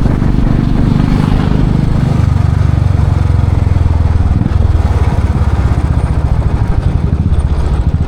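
Royal Enfield Classic 500's single-cylinder engine running loud and steady through its exhaust, its low pulsing note shifting about two seconds in and again about halfway through.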